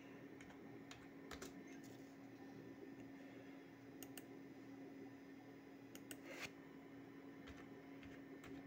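Faint, scattered clicks of a computer keyboard and mouse as numeric values are typed into fields, over a low steady hum.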